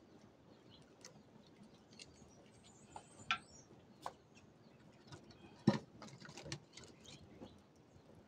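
Small wood fire crackling, with scattered sharp pops and knocks as sticks are pushed into the flames. The loudest knock comes about two-thirds of the way through.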